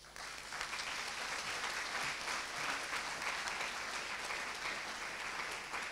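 Audience applauding: many hands clapping at once, starting abruptly.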